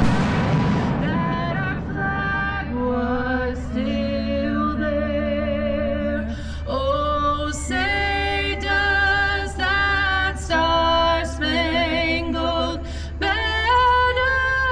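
Music with a singing voice holding long notes with vibrato, over a steady low rumble. In the first second the echo of two loud bangs just before it fades out.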